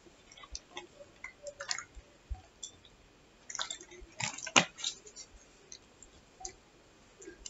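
Fingers stirring dry flour in a plastic bowl: soft scattered rustles and small ticks, busier around the middle, with one sharper tap a little past halfway.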